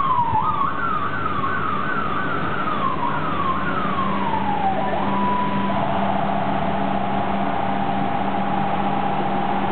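Electronic siren: a high note falls away, then a run of quick up-and-down sweeps about twice a second, then a long slide down. From about halfway in it settles into a steady lower tone over a low hum.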